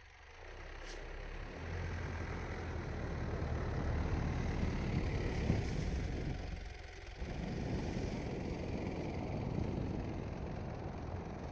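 Mitsubishi Pajero 4's 4M41 3.2-litre four-cylinder turbodiesel working under load as the SUV drives through deep snow, growing louder as it comes closer. The engine note drops briefly about seven seconds in, then builds again.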